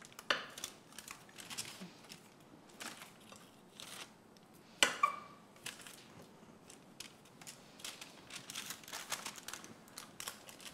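Light, scattered clicks and scrapes of small potatoes being cut in half with a knife and set down, with one sharper knock about five seconds in.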